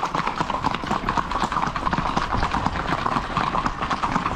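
Several horses' hooves clip-clopping at a quick, steady pace, the hoofbeats overlapping densely.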